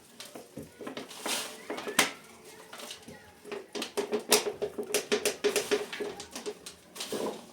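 Cookware and utensils clinking and knocking, a string of sharp clatters.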